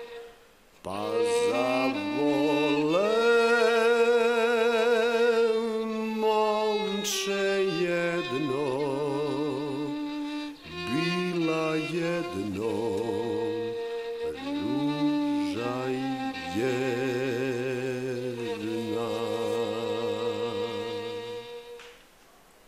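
A solo violin playing a slow melody with wide vibrato and long held notes, breaking briefly twice and stopping shortly before the end.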